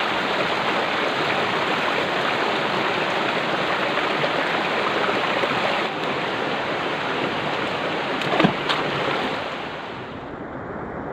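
Steady rushing of a flowing river or stream, with a couple of brief sharp knocks or splashes about eight and a half seconds in; the sound drops and grows duller near the end.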